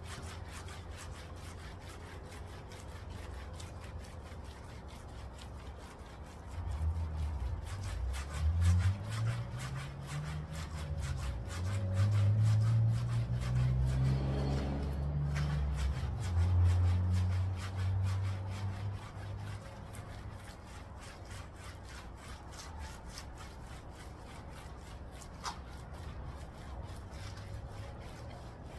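Clay towel scratching as it glides over car paint, a sound that comes from bonded contamination on the surface being pulled off; the audio is slowed down. From about 7 s to 19 s a louder low drone rises and falls in pitch over the scratching.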